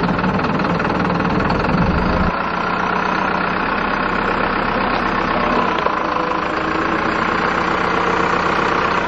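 Mercedes Vario 818 truck's four-cylinder diesel engine running at low revs as the camper crawls slowly over loose gravel. A deep low rumble in the engine note drops away a little over two seconds in.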